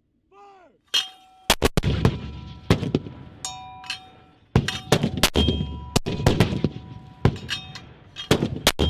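Mortars firing in a rapid series of sharp reports, each followed by a metallic ringing from the tubes, some with a heavy low rumble.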